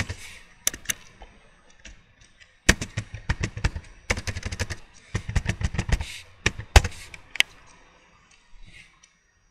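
Typing on a computer keyboard: irregular runs of sharp keystrokes, with a lull of more than a second early on and two hard strokes about seven seconds in, then only a few faint clicks.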